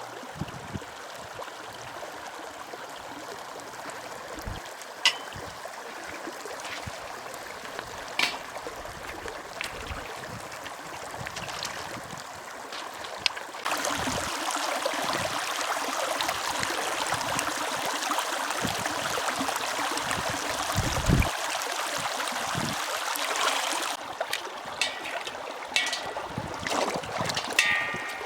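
Water running in a mountain stream, a steady rushing that grows louder for about ten seconds in the middle, with a few sharp clicks.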